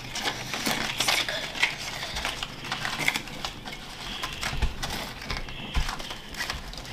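Small wrapped candy packets tapping and clicking against each other and the tabletop as they are handled and stacked into little towers: scattered, irregular light taps.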